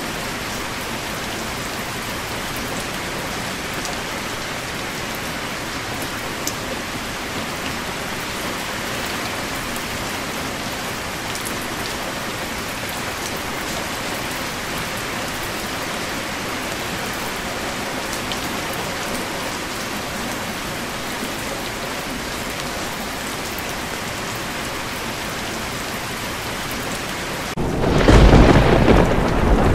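Steady rain falling, an even hiss of many drops. Near the end a loud, low rumble of thunder comes in over the rain.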